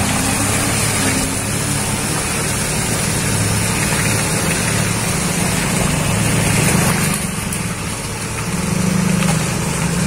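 Water tanker truck's engine running steadily as water gushes from its rear spray bar and splashes onto the dirt road.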